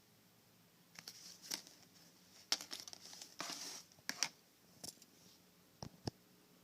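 Packaging being handled: a run of crinkling, rustling and sharp clicks, then two soft knocks near the end.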